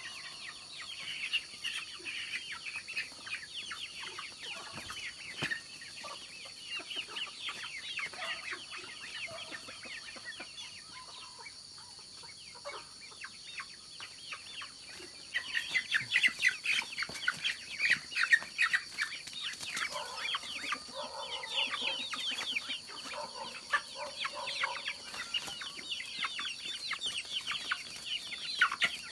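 Chickens clucking and chirping, getting louder and busier about halfway through.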